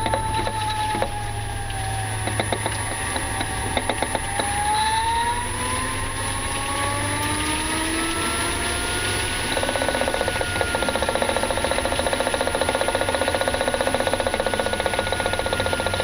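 Repeated knocking from under the bonnet of a 2018 Nissan Leaf while driving, a fault that keeps on while the car slows and turns. Under it the electric drive's whine falls as the car slows, then rises and holds steady. From about ten seconds in, the knocking becomes a fast, even rattle.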